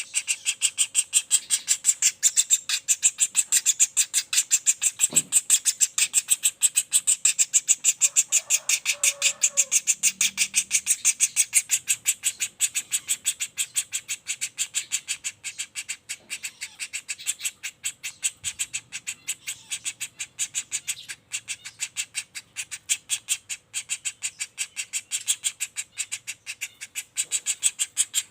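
Young flameback woodpecker (pelatuk bawang) giving a continuous rolling call: a rapid, evenly spaced string of sharp, high notes without pause.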